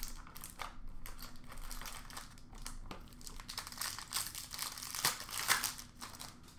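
Shiny wrapper of a hockey trading-card pack crinkling and rustling as it is handled and opened, a rapid, irregular crackle.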